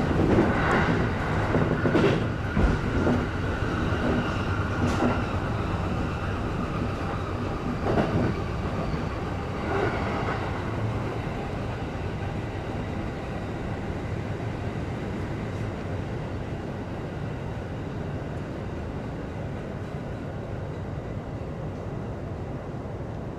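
E531 series electric train running, heard from behind the driver's cab: wheels clacking over rail joints and points several times in the first ten seconds or so, then a steadier rolling rumble that slowly grows quieter.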